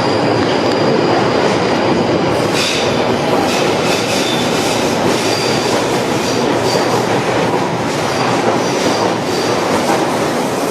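London Underground Northern Line 1995 Stock train pulling out of the platform: loud, continuous running and rail clatter, with a high wheel screech that comes and goes, described as a very loud screech.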